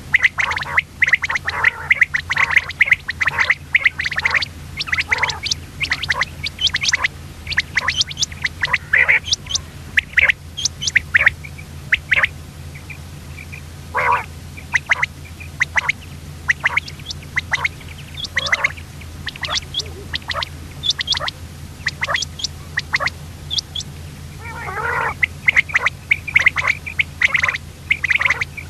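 Common quail calling: rapid, irregular runs of short calls, dense for the first dozen seconds, thinning out in the middle and thickening again near the end.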